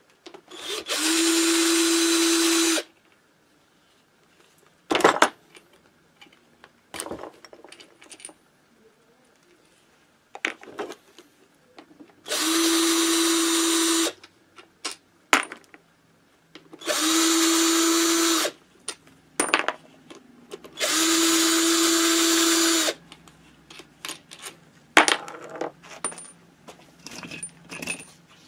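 Cordless drill-driver backing out the crankcase screws of a Minarelli AM6 moped engine. It runs in four steady spells of about two seconds each, with a constant motor whine, and sharp clicks and knocks come between the runs.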